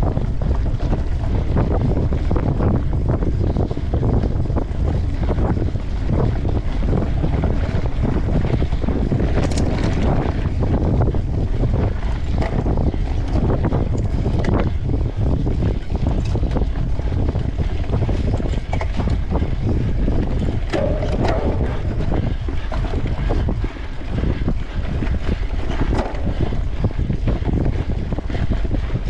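Wind buffeting the microphone of a camera on a mountain bike ridden fast along a forest trail, with frequent rattles and knocks from the bike over rough ground.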